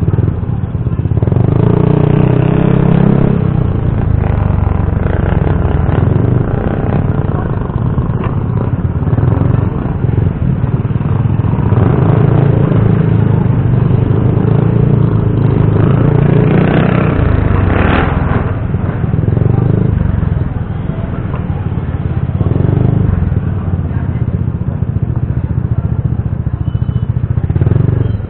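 Motorcycle engine running while riding, its note rising and falling several times with the throttle.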